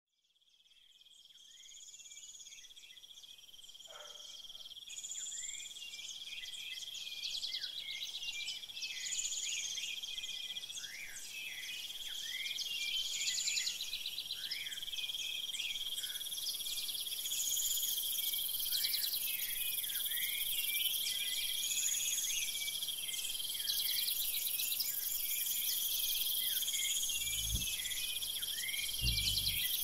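Forest ambience that fades in at the start: a steady high-pitched insect trill, with a call repeating about every two seconds above it and many short falling chirps from other insects or birds. Two brief low thumps come near the end.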